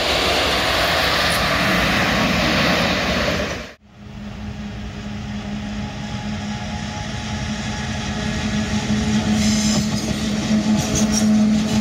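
A train running past with loud, even rail noise that cuts off suddenly about four seconds in. Then a PKP ET22 electric freight locomotive approaches with a steady low hum over rail noise, growing louder as it nears.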